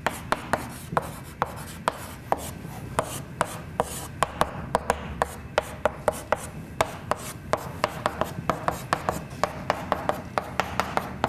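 Chalk writing on a chalkboard: an irregular series of sharp taps and short scrapes, a few per second, coming faster in the second half as lines and letters are drawn.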